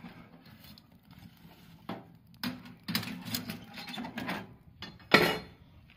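Steel fire tongs clanking and scraping against a wood stove as logs are pushed into the firebox and the stove door is shut, a run of irregular metallic knocks with one loud sharp clank about five seconds in.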